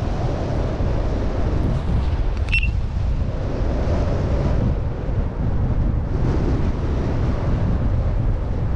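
Wind buffeting the microphone of a paraglider pilot's camera in flight: a loud, steady rumble of rushing air. About two and a half seconds in, a single short high chirp sounds over it.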